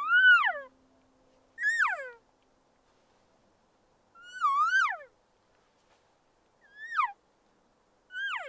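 Cow elk mews blown on a mouth call: five short, separate mews, each rising and then sliding down in pitch, the tone and direction changing from one to the next. The sequence imitates a group of cows talking among themselves, to draw in a lone bull.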